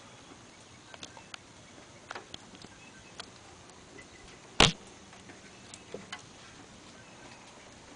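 Scattered faint clicks and ticks with one sharp knock about four and a half seconds in: handling noises around the riding mower's engine, which is not running.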